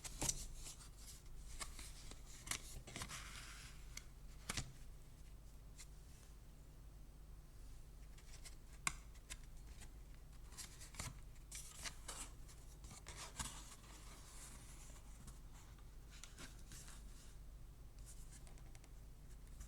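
Faint hand-handling of a card's packaging box: scattered light clicks and taps, with a few short stretches of paper-like rustling, the first right at the start and another about two-thirds of the way through.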